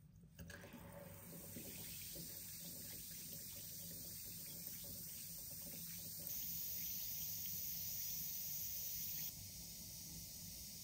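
Mickey Mouse–shaped bath fizzer dissolving in a glass bowl of water: a steady fizzing hiss of fine bubbles, a little louder for a few seconds past the middle.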